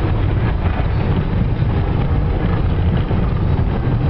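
Subaru Forester 2.5 XT driving on a rough dirt road, heard from inside the cabin: a steady low rumble of its turbocharged flat-four engine and its tyres on the dirt.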